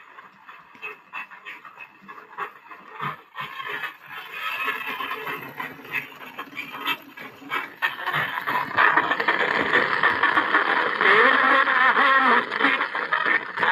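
Horn gramophone playing a record: thin, narrow-toned sound from the horn with surface crackle, getting louder about eight seconds in.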